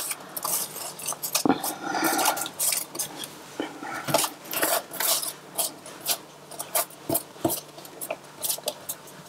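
Irregular light clicks and taps of a dish and fingers against a stainless steel stockpot as small filled pasta squares are pushed off a floured sheet of pasta into the broth.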